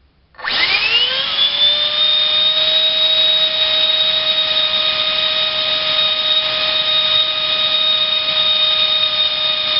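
A 65 mm electric ducted fan driven by a GoolRC 2958 4200kv inrunner motor. It spools up about half a second in with a quickly rising whine, then holds steady at half throttle as a high whine over rushing air.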